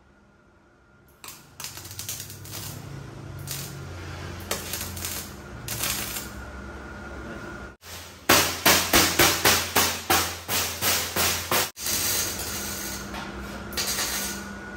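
Hammer blows on the steel frame: a quick run of about a dozen strong strikes, roughly three a second, past the middle. Before and after are scattered knocks and light clatter of metalwork.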